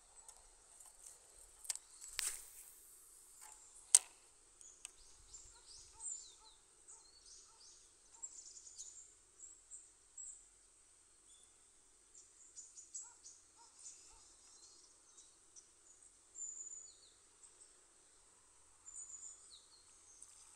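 Steady high-pitched insect trill, with many short chirps scattered over it. A brief whoosh about two seconds in and a single sharp click about four seconds in.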